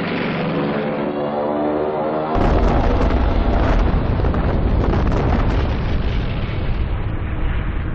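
Stuka dive bomber's engine droning in a dive with a steady pitch, cut off about two and a half seconds in by a heavy bomb blast, followed by a continuous deep rumble of explosions.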